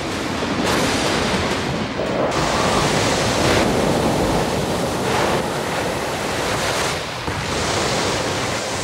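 Rushing, churning floodwater with wind: a loud, steady torrent that swells every couple of seconds.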